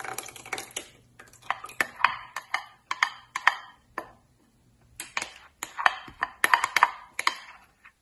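A spatula scraping and tapping tomato paste out of a glass bowl into a saucepan: irregular clicks and scrapes against the glass and the pan rim, with a short pause about four seconds in.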